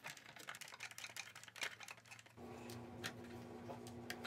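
Faint, scattered small clicks and ticks of a hand screwdriver turning small screws into a 3D-printed lightweight-PLA part. About two and a half seconds in, a steady low hum sets in, with a few light clicks over it.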